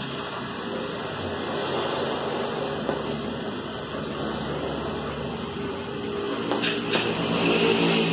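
Electric dog-grooming clipper running steadily while shaving the fur on the inside of a cocker spaniel's hind leg.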